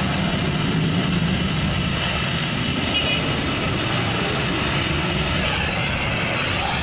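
Gas welding torch burning with a steady roar and hiss as the joint of a car's flexible exhaust pipe is brazed.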